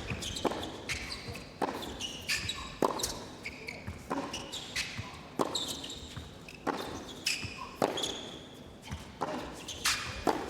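A tennis rally: the ball struck hard by racquets and bouncing on the court, a sharp pop every half second to a second, with short high shoe squeaks among the shots.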